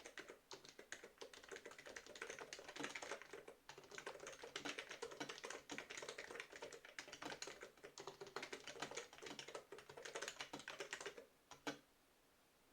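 Fast, continuous typing on a BTC 5139 keyboard with rubber-dome switches and sliders, keystrokes clattering in quick succession. The typing stops about a second before the end, with one last keystroke just after.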